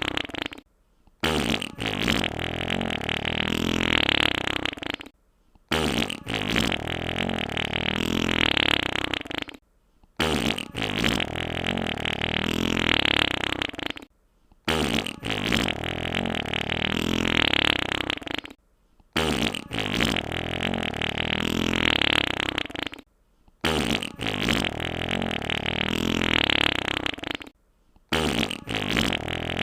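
A long wet fart, about four seconds each time, played on a loop: the same sound repeats about every four and a half seconds with a short silence between, about seven times.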